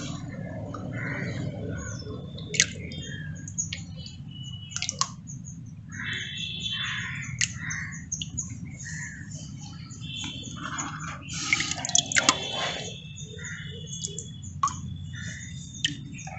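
Water dripping and splashing as a hand scoops guppy fry out of a tank, heard as scattered sharp drips and plops over a steady low hum. Birds chirp briefly now and then.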